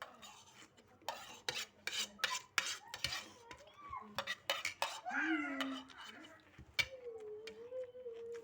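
Metal spoons clinking and scraping against plates as rice is eaten quickly. In the second half there is a short pitched sound, then a steady held hum-like tone.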